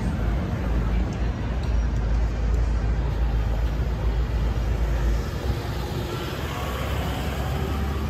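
City street traffic noise: vehicles passing with a steady hum and a deep rumble that drops away about five seconds in.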